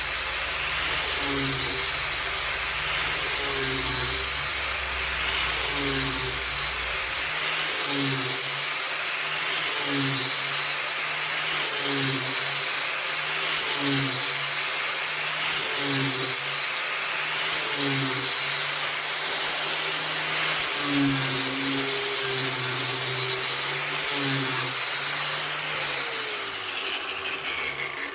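Angle grinder running steadily while grinding the edge of a lawnmower blade, taking the factory edge off. The noise swells about every two seconds as it passes along the edge, and it stops near the end.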